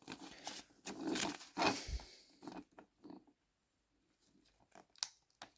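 Faint handling noises: soft rustles of a small piece of newspaper being pressed and smoothed into place with blue tack, then a couple of light clicks near the end.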